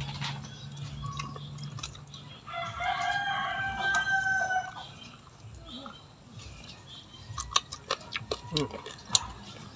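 A rooster crowing once, a long held call of about two seconds. Sharp clicks and taps follow in the second half.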